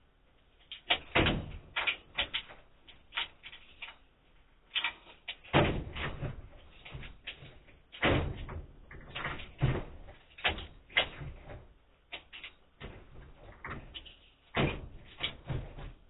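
A wooden door rattling and clunking in irregular knocks and bangs as someone tries to open it while the lock won't give, heard thin through a security camera's microphone.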